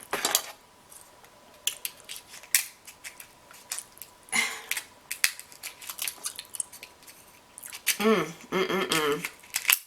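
Scissors snipping through king crab leg shell: a run of sharp, irregular snips and cracks. Near the end, a person's voice is heard briefly.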